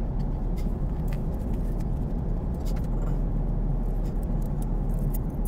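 Airbus A380 cabin noise in cruise flight: a steady low drone of airflow and engines, with a few faint light clicks.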